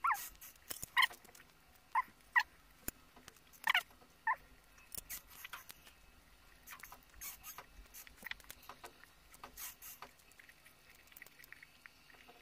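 Close-miked eating of instant noodles: slurping and chewing with wet mouth clicks. A few short high squeaks come in the first half.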